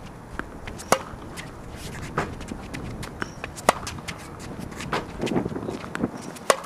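Tennis racket striking the ball on groundstrokes, a sharp pop about every three seconds, with lighter ball bounces and the player's footsteps shuffling on the hard court between hits.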